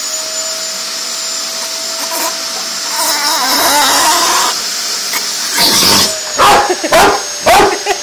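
A vacuum cleaner runs with a steady whine while a Rottweiler plays at it, making sputtering, fart-like noises around the middle. Several short loud barks come in the last few seconds.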